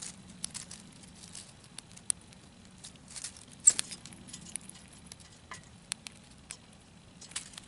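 Gray squirrel foraging in a tray of birdseed: irregular small clicks and rattles of seeds being nosed through and cracked, with one sharper, louder click a little past halfway.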